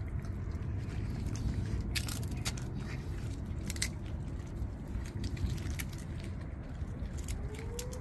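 Raccoon crunching dry dog kibble close by, a run of irregular crisp crunches and clicks. About seven seconds in, a tornado siren begins to wind up faintly in the distance with a slowly rising tone.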